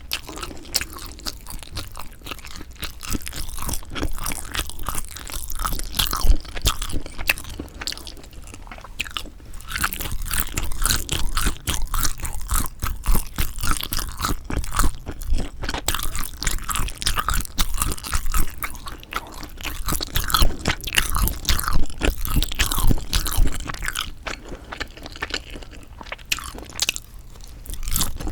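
A person chewing and biting sundae (Korean blood sausage) close to the microphone, with a steady run of wet, sticky mouth clicks and smacks.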